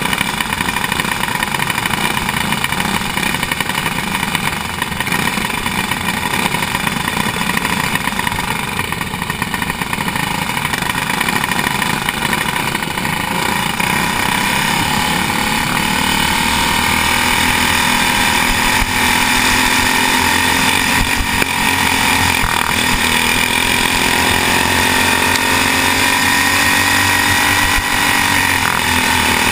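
Racing go-kart engine running hard at racing speed, heard from on board the kart. It grows somewhat louder about halfway through, with the pitch rising and falling as the kart goes through the turns.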